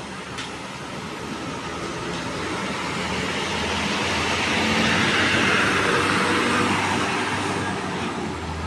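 Intercity coach bus driving slowly past close by, its engine hum and tyre noise growing louder to a peak about five seconds in and then fading.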